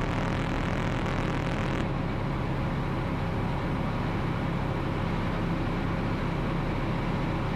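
Ultralight aircraft's engine and propeller droning steadily in flight, with a hiss over it that stops about two seconds in.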